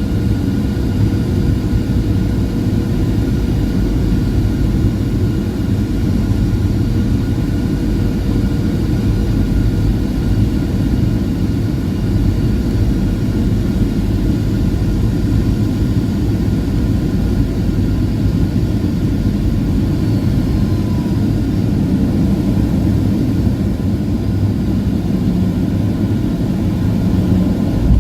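Airliner cabin noise: a steady low rumble of jet engines and airflow, with faint steady whining tones above it.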